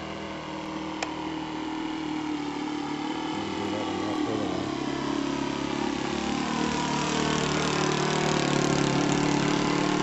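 Radio-controlled model plane's engine running in flight, its pitch slowly sagging and then rising as it moves about, and growing louder toward the end as it comes nearer. A short sharp click about a second in.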